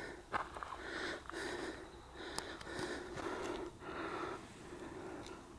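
A person breathing hard, in quick rhythmic in-and-out breaths, winded from hiking up a steep trail. A couple of sharp clicks stand out above the breathing.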